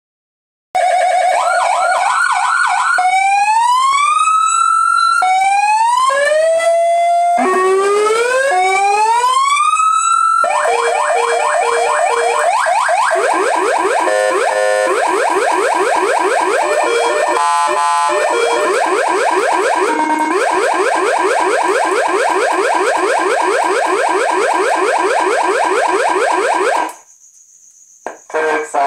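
Loud electronic siren cycling through tone patterns: a fast warble, then three rising whoops, then a rapid repeating pulse pattern that runs on and cuts off suddenly near the end.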